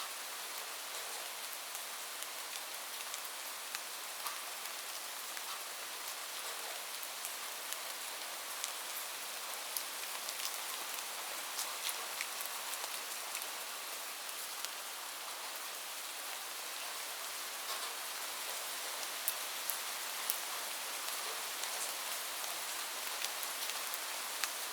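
Steady rain, a constant even hiss with many short, sharp drop ticks scattered through it.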